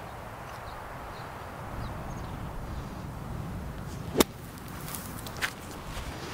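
Strong wind rushing over the microphone, broken about four seconds in by one sharp, loud strike of a golf club blasting the ball out of a sand bunker, with a smaller click about a second later.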